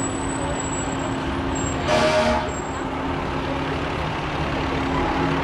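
Fire engine running as it drives slowly past, with one short blast of its horn about two seconds in.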